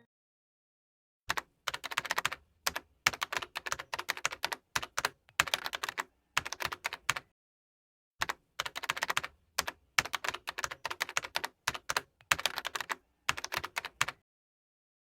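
Computer-keyboard typing, fast clattering keystrokes in irregular bursts, in two runs of about six seconds with a short break in dead silence between, typical of a typing sound effect laid over the edit.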